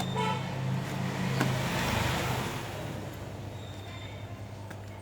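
A road vehicle passing by, its noise swelling and fading over a couple of seconds, over a steady low hum, with a small click about a second and a half in.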